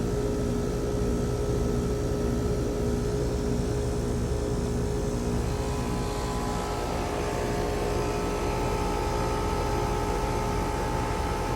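Lennox air-conditioner condenser unit humming steadily, a unit that is not cooling. A second, higher tone joins the hum about seven seconds in.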